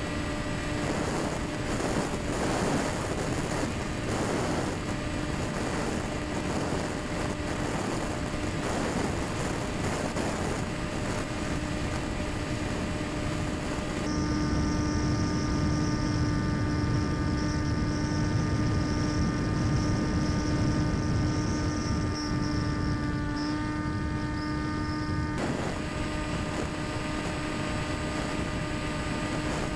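Electric motor and propeller of a Quanum Observer RC plane running at steady cruise throttle: a steady whine over wind rush. From about halfway through, the whine carries more, higher tones and dips briefly in pitch before switching back abruptly.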